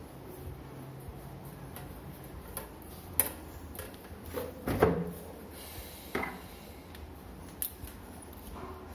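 A few scattered light knocks and clatters as a toddler handles small household objects (plastic combs, bottles) on a hard stone window sill. The loudest knock comes a little under five seconds in.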